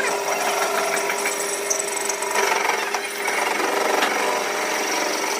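A power tool running steadily, a constant hum under a dense rough noise.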